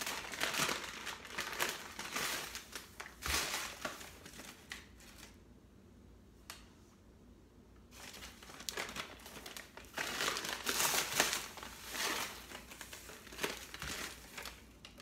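Paper bag of granulated sugar crinkling and rustling as sugar is scooped out of it and poured into a saucepan, in two spells of rustling with a quieter gap of a few seconds in the middle.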